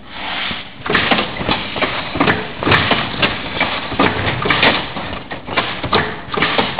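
Automatic roller-shutter assembling machine running: aluminium slats clattering and knocking in quick, irregular strokes as they are fed along and joined together, over a steady mechanical rumble. The clatter swells up about a second in.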